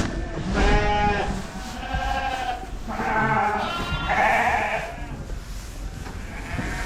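Dorper sheep bleating: about five calls one after another, some overlapping, over a steady low rumble.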